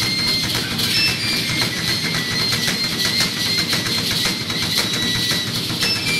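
Music with fast, steady drumming accompanying a Maya warrior dance, with high held tones above the drums.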